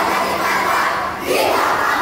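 A group of children shouting a chant in unison; the shout dips a little past halfway and a new one starts right after.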